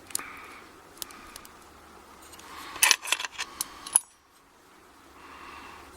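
Small metal parts of a pin-tumbler euro cylinder lock clicking and clinking as the cap is worked off the back of the cylinder, with a quick cluster of sharp clicks about three to four seconds in.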